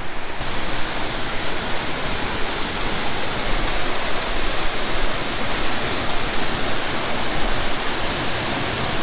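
Waterfall: steady, loud rushing water with no break, growing brighter just after it begins.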